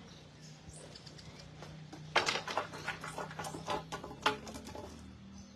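A quick, irregular run of sharp clicks and taps lasting about two seconds, over a faint steady low hum.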